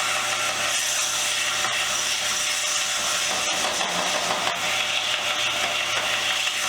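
Combination sander running with a metal vise part pressed against it: a steady grinding hiss over the motor's hum as the cut edge is rounded off.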